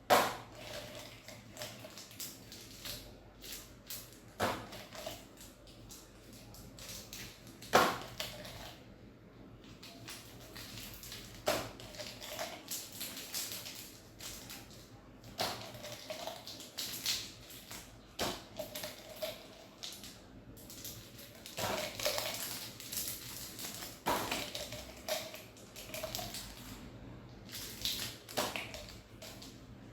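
Stationery and its packaging being handled: irregular rustling, with sharp taps and clicks as items are picked up and set down.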